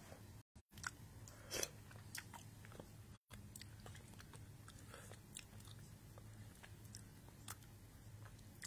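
Faint mouth sounds of a person chewing food, small scattered clicks and smacks close to the microphone, over a steady low hum. The sound cuts out completely twice for a moment.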